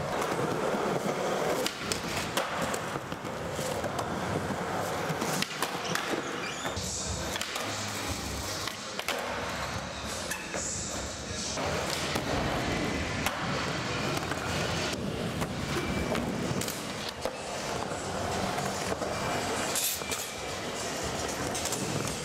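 Skateboard wheels rolling on ramps and smooth concrete, with repeated sharp clacks of the board popping and landing and the scrape of trucks grinding along ledge and box edges.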